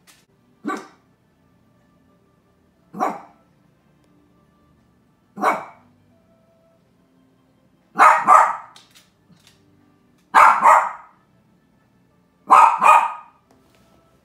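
Small dog barking: three single barks a couple of seconds apart, then three louder double barks.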